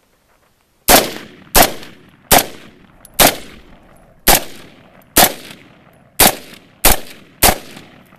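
BCM M16A5 AR-15 rifle in 5.56 with a rifle-length gas system and H buffer, fired nine times in single shots at a steady pace, a bit under a second apart. Each shot is followed by a short echoing tail.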